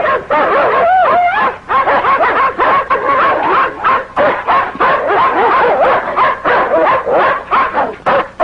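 German Shepherd barking in many short, rapid bursts as it attacks a man.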